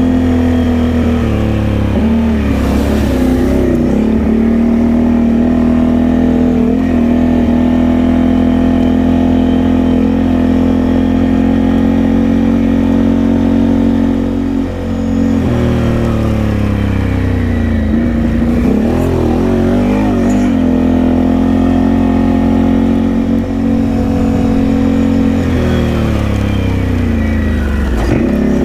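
Can-Am Outlander ATV engine running steadily as the quad cruises along a grassy trail. The pitch drops and climbs back a few times as the rider eases off and gets back on the throttle, about halfway through, again a few seconds later and near the end.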